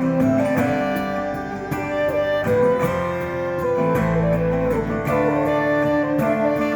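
Instrumental music from a live band, a guitar carrying the melody over a bass line, with a steady beat of cymbal strokes.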